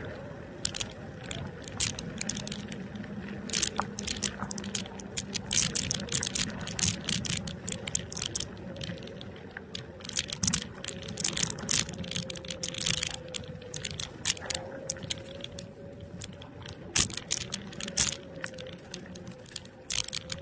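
NIU KQi2 electric scooter ridden over a bumpy dirt track. Its frame and fittings rattle and click irregularly over the ruts, over a faint steady whine from the electric motor.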